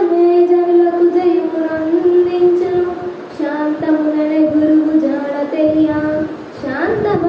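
A single high voice singing a Telugu padyam (verse) in a slow, drawn-out melody, holding long notes with a slight waver and pausing for breath about three seconds in and again near the end.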